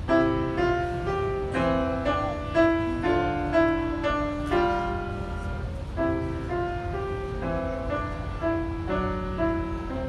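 Solo grand piano, a lively piece played in clear, separately struck notes and chords, beginning right at the start.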